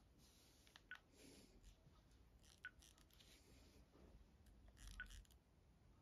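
Near silence: room tone, with three faint short clicks about two seconds apart.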